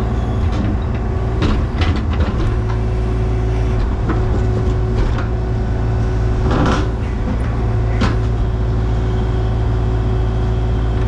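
An engine running steadily with a low hum, with several short knocks and clanks over it, the loudest about two-thirds of the way through.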